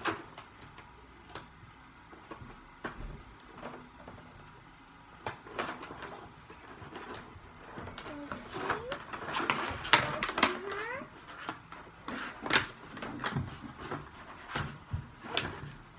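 Scissors snipping and hands handling a toy doll's packaging as it is cut open: scattered clicks, snips and crinkles, busier in the second half, with a few short squeaky sounds in the middle.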